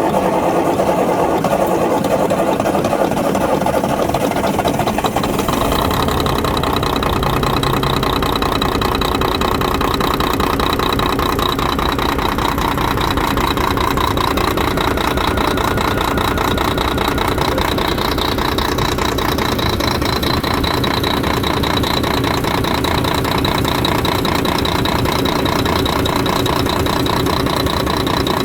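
Volvo FH12 truck's D12 inline-six diesel cranking on the starter and catching about five seconds in, then idling unevenly. It is misfiring on one cylinder, which diagnostics trace to the third injector giving no mechanical response.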